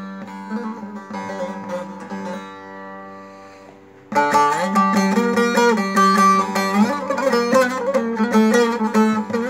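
Long-neck bağlama with a stave-built mulberry bowl being played: a plucked melody over a steady drone, then a chord left to ring and fade for about a second and a half. About four seconds in, loud, busy playing starts again suddenly.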